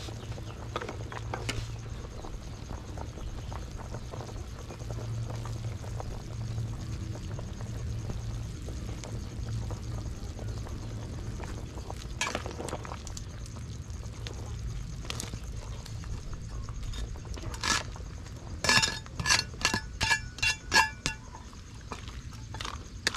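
Metal ladle scraping and clinking against an aluminium cooking pot, ending in a quick run of about six ringing clinks near the end. A steady low rumble runs underneath.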